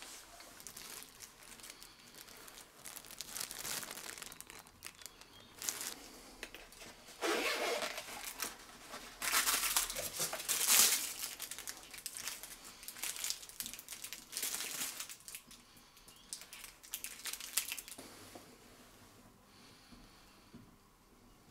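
Plastic wrapping crinkling and rustling in irregular bursts as accessories are handled and unpacked from a cardboard box, loudest in the middle stretch.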